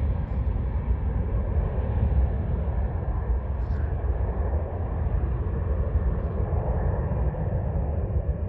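Embraer E175 regional jet's two General Electric CF34-8E turbofan engines at takeoff thrust: a steady, deep rumble with a rushing jet noise over it.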